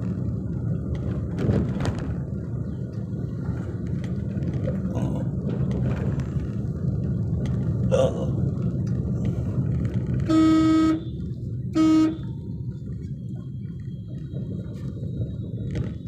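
Steady engine and road rumble heard from inside a moving car's cabin. About ten seconds in, a vehicle horn honks twice: a longer beep, then a short one.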